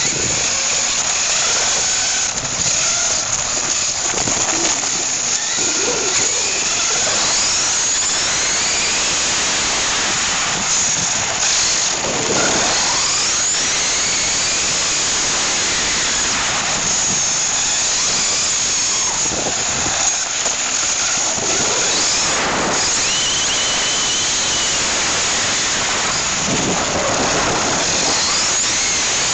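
Electric motor and gear drive of a Tamiya TA-01 4WD RC car, heard from a camera riding on the car: a whine that rises and falls in pitch as it speeds up and slows, over a steady loud rush of tyre and vibration noise.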